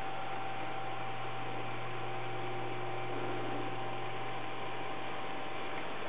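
Steady electrical hum and hiss with a faint constant high tone, like a recording's background noise; no distinct parrot call stands out.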